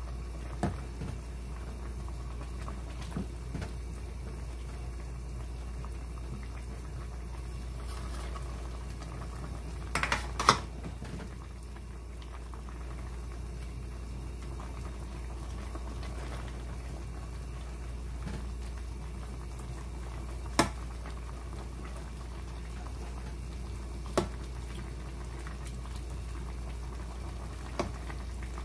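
A pot of spicy red chicken stew bubbling steadily on the stove, over a constant low hum. A plastic ladle stirring it knocks against the metal pot now and then with sharp clicks, a quick cluster of them about ten seconds in being the loudest.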